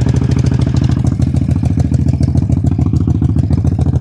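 Suzuki Volusia 800's liquid-cooled V-twin idling steadily, with an even, rapid pulse. It is running so that water circulates through the freshly drained and flushed cooling system.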